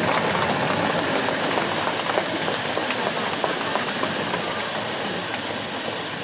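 A large crowd applauding steadily: many hands clapping at once in a dense, sustained wash.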